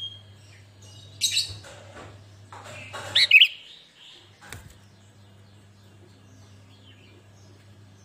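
Sooty-headed bulbul singing in short bursts of quick chirping notes, with two loud phrases about one and three seconds in, the second the loudest, and a brief note near the middle. A faint low steady hum lies underneath.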